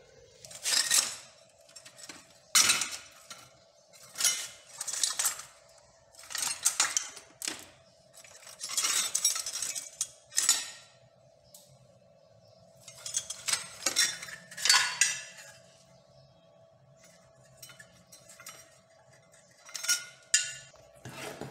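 Scrap steel pieces clanking, scraping and rattling against each other as a hand rummages through a crate of scrap metal, in about a dozen separate bursts of clatter.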